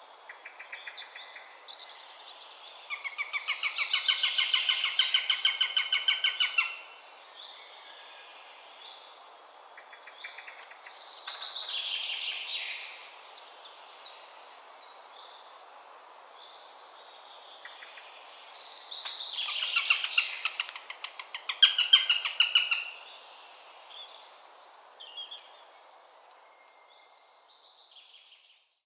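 Eurasian sparrowhawk calling: two long runs of rapid, evenly repeated chattering notes, one in the first quarter and one about two-thirds through, with a shorter burst of calls between them. Thin, high peeps sound every few seconds in the background.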